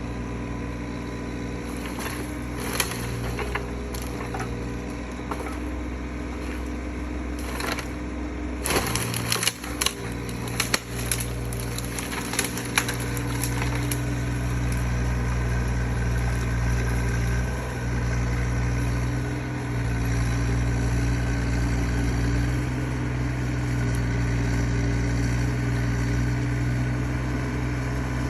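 Mini excavator engine running steadily while wood cracks and snaps in a string of sharp breaks through the first half, as the log grapple grabs and crushes branches and brush. The engine gets louder from about halfway.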